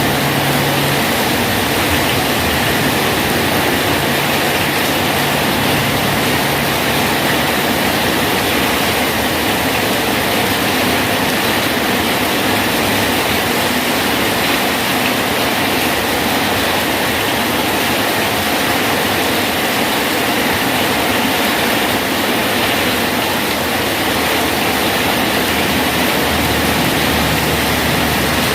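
Steady rain falling on a bridge: an even, unbroken hiss with no breaks or separate drops standing out.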